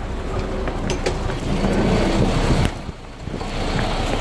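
Vehicle engine running with street noise, louder in the middle and dipping briefly about three seconds in.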